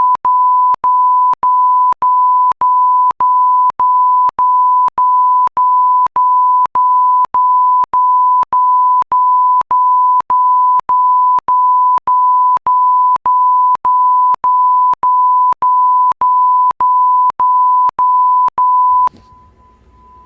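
Edited-in electronic censor beep: a single steady high tone repeated over and over in an even rhythm, about two and a half beeps a second, each with a short gap between them. It stops about a second before the end.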